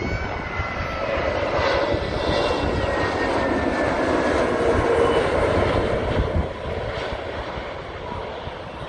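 Airbus A320neo jet airliner with CFM LEAP-1A turbofans passing low overhead on landing approach: a steady jet rumble with a faint whine that falls in pitch, loudest about five seconds in, then fading as it moves away.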